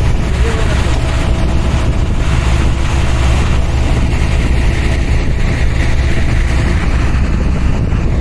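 Steady, loud diesel rumble of a concrete mixer truck and a truck-mounted concrete pump running together while concrete is pumped through the boom hose into the mixer's hopper.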